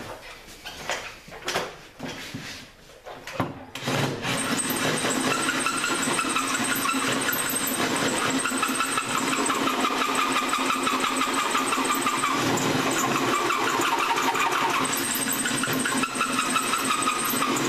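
A few knocks and handling sounds, then about four seconds in an electric drill starts and runs steadily, boring through the skid steer's shaft after the pilot hole.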